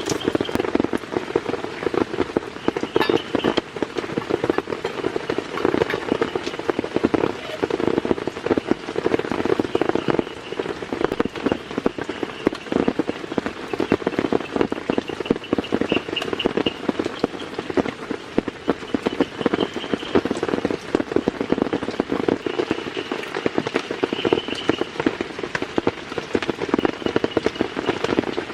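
Steady heavy rain: a dense, unbroken patter of drops striking a surface.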